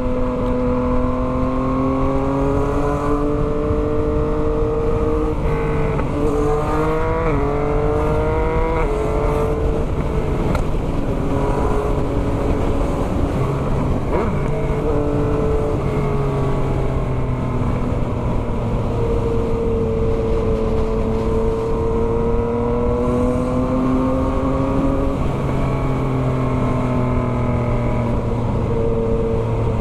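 Yamaha MT-09's 890 cc crossplane three-cylinder engine running through a full 3-into-1 Atalla exhaust with no silencer, heard from the bike while riding. The pitch climbs in several short steps in the first third as it revs up through the gears, then rises and falls slowly with the throttle.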